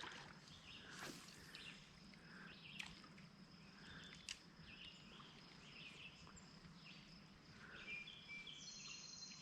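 Near silence: faint outdoor ambience with scattered faint bird chirps and a few soft clicks.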